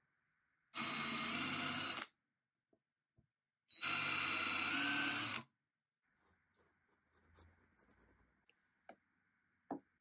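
Handheld power drill with a countersink bit running in two bursts of about a second to a second and a half each, countersinking screw holes in small wood blocks. Faint handling sounds follow.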